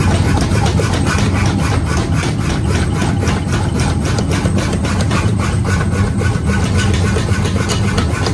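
Power hammer running, its ram pounding a red-hot leaf-spring steel blank in rapid, even blows over the machine's steady low drone.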